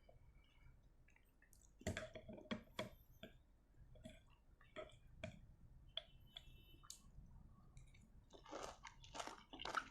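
Close-miked ASMR chewing of rujak jeruk nipis, a lime salad in chili sambal: scattered wet mouth clicks and smacks, turning into a denser run of chewing near the end.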